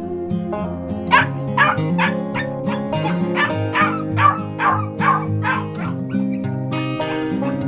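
A dog barking in short, quick yaps, about two to three a second, over steady background music.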